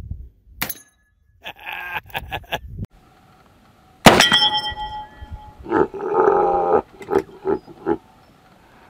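Shots from a .22 revolver and the clank of the bullets striking hanging steel plate targets, several times. The loudest hit comes about four seconds in and rings on with a metallic tone as it fades.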